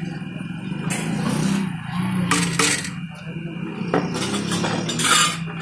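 A steel spatula scraping and clanking against a large wok as chow mein noodles are stir-fried, with several sharp metal strikes, over a steady low hum.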